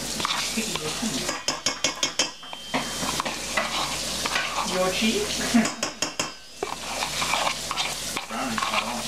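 A plastic ricotta tub knocking and scraping against a stainless steel mixing bowl as the cheese is emptied in, with a wire whisk clinking in the bowl. A steady sizzle of ground turkey browning in a frying pan runs underneath.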